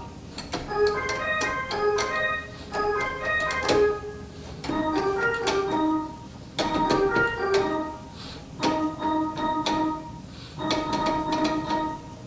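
Electronic keyboard playing a simple tune in an organ-like voice, in short phrases of a few notes with brief pauses between them.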